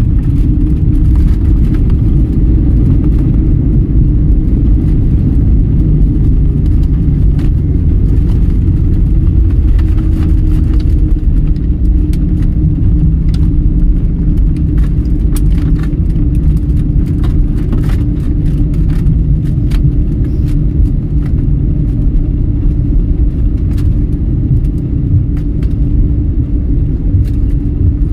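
Airliner cabin noise during the landing roll: a loud, steady rumble from the engines and wheels on the runway with a constant low hum, and many light clicks and rattles through the middle stretch.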